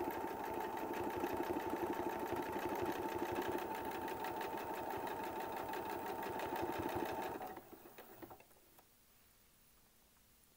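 Domestic sewing machine running steadily at a raised speed, free-motion quilting through a thick quilt sandwich under a springless quilting foot. The foot does not hop. The machine stops about three-quarters of the way through.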